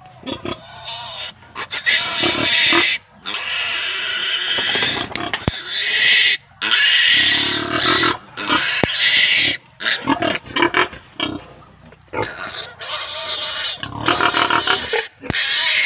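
Day-old piglet squealing loudly in a run of long, shrill screams, each one to three seconds, with short breaks between, while it is held and its needle teeth are clipped.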